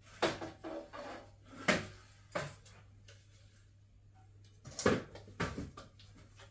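Aluminium stepladder being moved and set down, a series of metal clanks and knocks, loudest about a second and a half in and again near five seconds.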